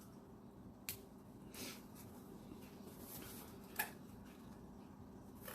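Faint handling of a cardboard produce box being opened: a few light clicks and rustles, spaced out over a few seconds, over a steady low room hum.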